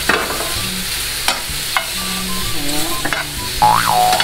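Button mushrooms sizzling in a hot non-stick frying pan as they brown, stirred with a metal spoon that clicks against the pan a few times. A brief rising-and-falling tone sounds near the end.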